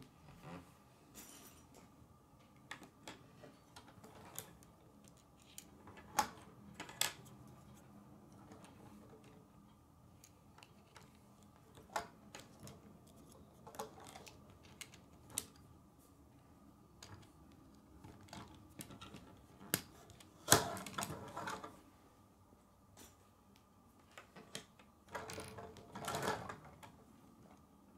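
K'nex plastic pieces clicking and tapping as wheels are fitted onto a model car, in scattered single clicks. Two louder spells of rattling come about twenty seconds in and again near the end.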